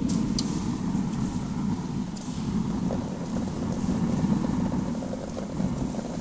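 Cornelian cherries tumbling from a metal bowl into a pot of sugar syrup, with faint ticks and small plops, over a steady low rumble that is the loudest sound.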